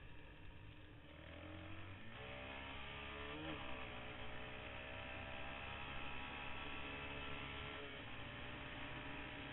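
Sport quad's engine accelerating, its pitch climbing from about a second in, with a quick pitch change about three and a half seconds in, then running steadily at speed on a dirt road.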